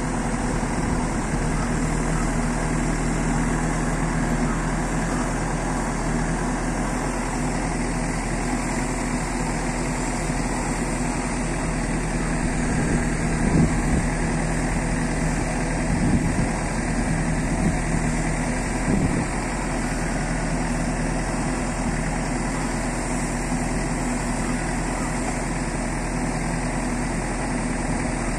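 Escorts Digmax 2 backhoe loader's diesel engine running steadily at about 1200 rpm while the backhoe arm digs, with a few brief louder knocks in the middle.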